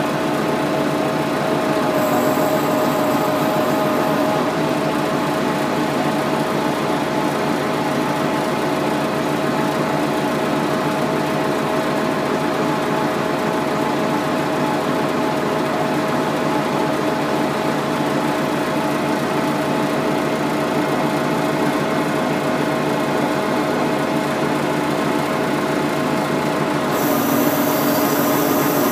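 Hydraulic drive of a Tecnobenne log grapple and its carrier machine running steadily with a constant whine while the grapple's rotator turns it. A brief high hiss comes about two seconds in and again near the end.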